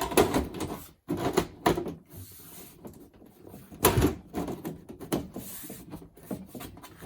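A desktop PC's sheet-metal side panel being handled and slid back onto the case: a series of metal clanks and scraping rattles, the loudest about four seconds in.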